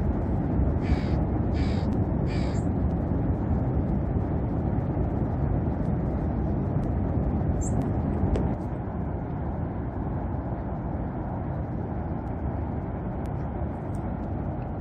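A crow cawing three times in quick succession, over a steady low rushing background that drops slightly in level about halfway through.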